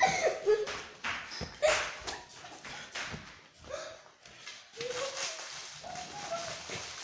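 Short bursts of stifled laughter, with rustling and handling noises from the table.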